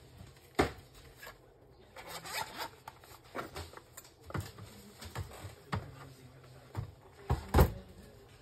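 Hands working on the opened printer's parts: irregular clicks, taps and scraping rustles, with a sharp knock shortly after the start and a louder one near the end.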